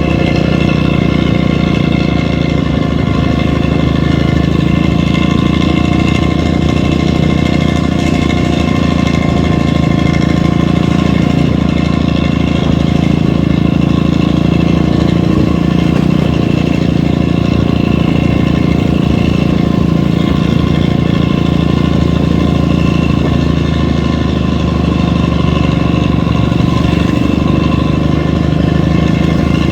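Large vehicle engine, most likely a bus's diesel, running at a steady pace: an unbroken, even drone with no revving or gear changes.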